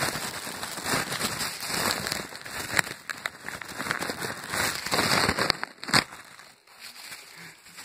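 Crackling and crinkling of a taped package being handled and picked open, with many sharp irregular clicks and one louder crack about six seconds in, then quieter.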